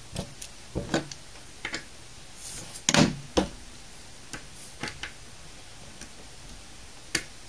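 Scattered light clicks and short scrapes of a small screwdriver tip working at the screw hidden under the label in the centre of a Western Digital WD5000KS hard drive's metal top cover, irregularly spaced, the loudest about three seconds in.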